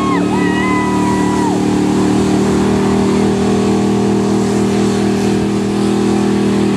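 Mud-bog pickup truck's engine held at high, steady revs while its 44-inch tires spin and churn through a deep mud pit.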